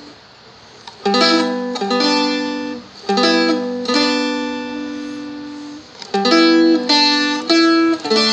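Seagull Merlin, a small fretted dulcimer-style instrument, played in short phrases: a strummed chord followed by single plucked notes, with lower open strings ringing on underneath. After a quiet first second the phrase starts three times, at about one, three and six seconds in.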